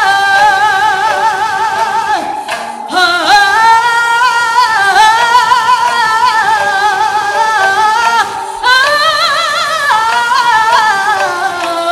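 A solo singer holding long notes with wide, even vibrato and ornamented turns, with two short breaks for breath, about two and a half and eight and a half seconds in.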